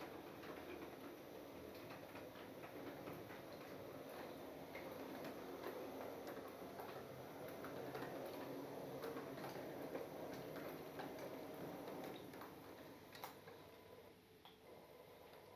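Gauge 0 model train of tank wagons rolling along the track: a low running rumble with irregular ticking from the wheels on the rails. It grows louder toward the middle as the train comes near and fades toward the end.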